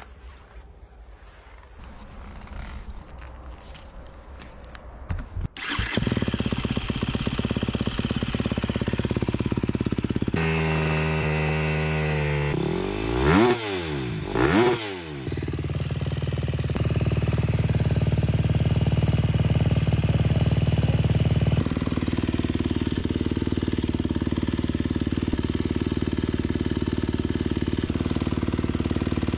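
2025 KTM 250 SX-F's single-cylinder four-stroke engine starting about six seconds in and idling, with two quick throttle blips near the middle, then running steadily. The engine is brand new, with only 0.2 hours on it, and is being run gently to break it in.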